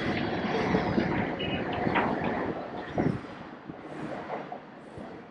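Steady rumbling outdoor background noise that drops noticeably in level about three seconds in, with a few faint knocks.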